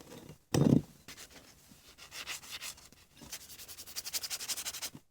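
An abrasive foam scouring pad scrubbing degreaser-soaked, rusty metal vise parts in quick back-and-forth strokes, light scraping to prep the surfaces for paint. A loud thump comes about half a second in, and the strokes get faster and more even in the second half.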